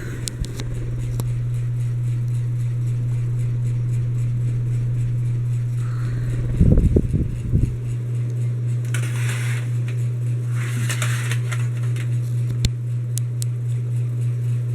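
Hampton Bay Landmark Plus ceiling fan motor running with a steady low buzzing hum that pulses slightly. A couple of brief low thumps come about halfway through, and two short hissy rushes follow soon after.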